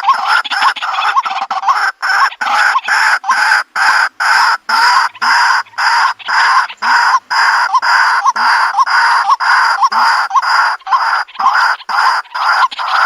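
White-breasted waterhen calling: a loud, unbroken series of short, repeated call notes at about two a second.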